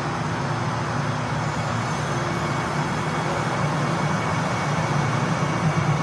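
Metro train on its track: a steady rumble with a low hum, a faint high tone joining partway through, and the level edging up toward the end.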